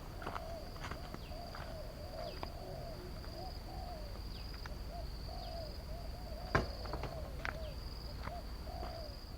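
Riverside ambience: a steady high insect trill, with short chirping calls of some animal repeated every fraction of a second lower down, a low rumble, and scattered light clicks, the sharpest about six and a half seconds in.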